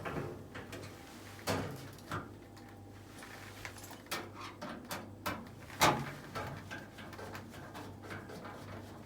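Scattered knocks and clicks of hand work on a range-hood fan unit, with a sharp knock about six seconds in, over a steady low hum.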